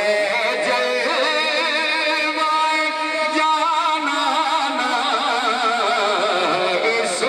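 A man singing a naat, an Urdu devotional poem, into a microphone, with long held notes that waver and ornament in pitch.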